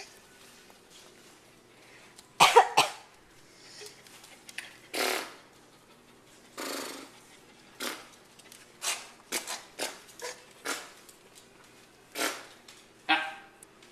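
Repeated throat clearing: about a dozen short, rasping cough-like bursts, the loudest pair about two and a half seconds in.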